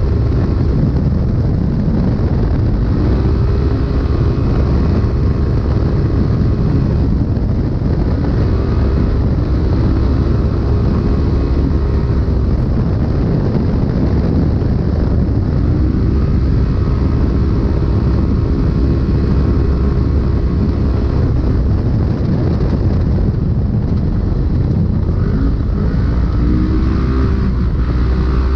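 Polaris RZR race UTV driven hard, heard from inside the cab: loud, steady engine and drivetrain noise over a heavy low rumble, with the engine note rising in pitch several times as it pulls up through the revs.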